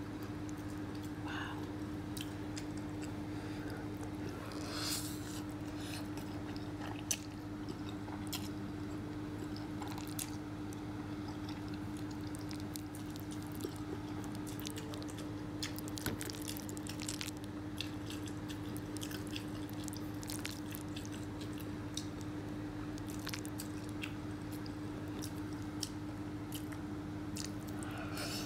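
Close-miked chewing and mouth sounds of macaroni and cheese being eaten, with scattered short clicks of a metal fork against the bowl, over a steady low hum.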